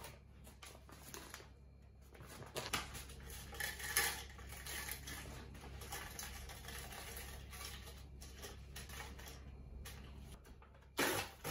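Whole dried red chillies dropped by hand into the plastic bowl of a Cuisinart mini food processor: a continuous light pattering and rattling of dry pods on plastic. A sharper, louder knock comes near the end.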